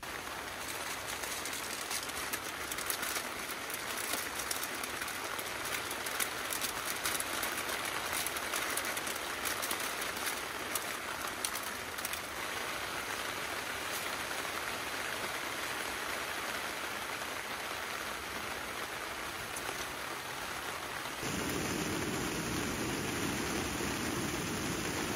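Steady rain falling on a tent tarp, with many separate drops ticking on the fabric. About 21 seconds in, the sound changes abruptly to a fuller, deeper rush.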